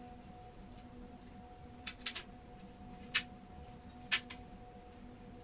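Faint handling noise: a few light clicks and taps, about two, three and four seconds in, as a hanging cord is worked through a wooden poster-hanger molding, over a low steady hum.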